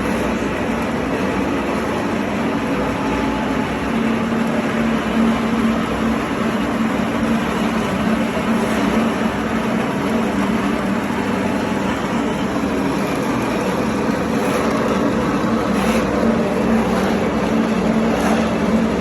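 Animal feed pellet mill running steadily under load: a continuous loud mechanical drone with a constant low hum and a few faint clicks.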